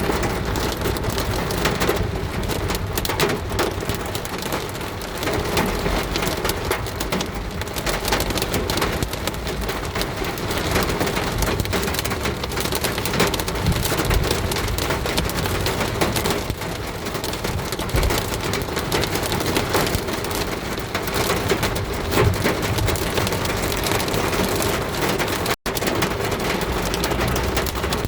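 Heavy rain drumming on a car: a dense, fast patter of drops with a low rumble underneath. The sound cuts out for an instant near the end.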